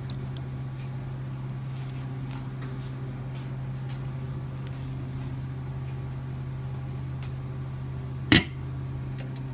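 Steady low hum from the LCD laminating machine, with faint clicks of parts being handled. About eight seconds in comes one sharp, loud clack.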